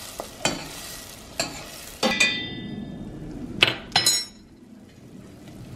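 Diced onion sizzling in butter in a stainless steel pot while a metal spoon stirs it, clicking against the pot. The spoon strikes the metal with a ringing clink about two seconds in and twice near four seconds, and the sizzle fades out after the first clink.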